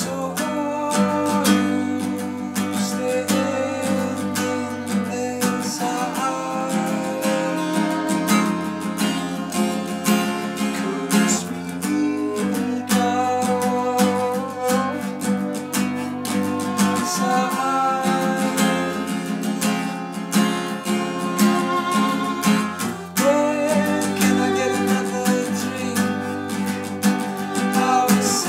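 Strummed acoustic guitar with a violin melody over it, played as one continuous song.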